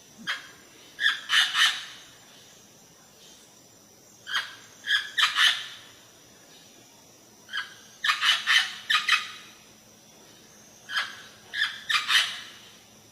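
Green parrots squawking: short groups of harsh, shrill screeches repeating every few seconds, with near quiet between them.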